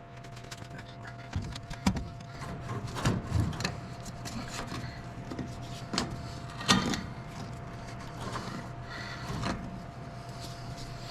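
Irregular knocks, clicks and scraping of hand tools prying and working at a stuck, wire-reinforced radiator hose on an old truck engine, the loudest knocks about two, three and almost seven seconds in, over a steady low hum.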